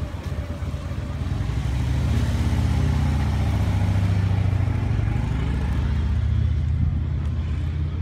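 A road vehicle's engine passing close by, a low rumble that swells to its loudest a few seconds in and then fades.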